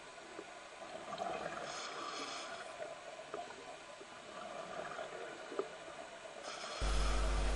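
Scuba diver breathing through a regulator underwater: recurring hissing breaths and gurgling exhaust bubbles. A steady low hum cuts in suddenly near the end.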